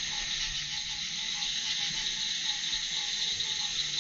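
A steady, dense chorus of night insects chirring, with a faint low note repeating about three times a second underneath.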